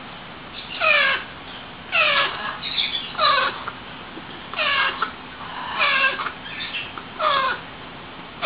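Baby parrot chicks crying, a run of about seven short squawking calls roughly once a second.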